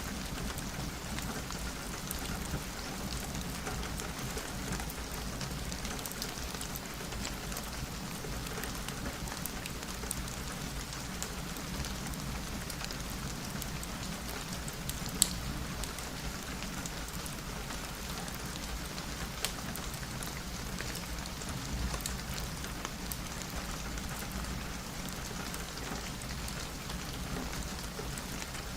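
Steady rain pattering on a window, with scattered sharp drop ticks and one louder click about halfway through.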